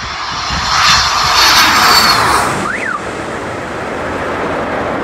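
Fighter jet flying low overhead: loud jet engine noise builds and peaks for about a second and a half, with a high whine that drops slightly in pitch as it passes, then eases to a steadier, quieter rumble.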